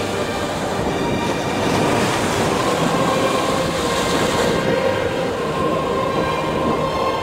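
Steady roar of rough surf and wind, waves breaking continuously.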